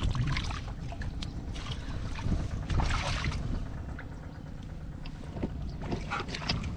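Splashing and sloshing in shallow muddy paddy water as a large fish is grabbed and handled by hand, with short wet slaps scattered through. A steady low wind rumble on the microphone lies under it.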